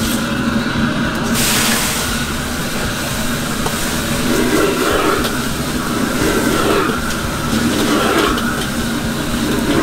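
Commercial gas wok burner running at full flame with a steady roar, under a wok of water spinach stir-frying. A hiss of sizzling thickens about a second and a half in, and there are a few light clinks of the metal ladle on the wok.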